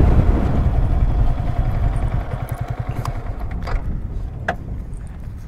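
Yamaha sport motorcycle's engine running at low revs while the bike rolls slowly over sand, fading as it slows. A few light clicks sound near the middle.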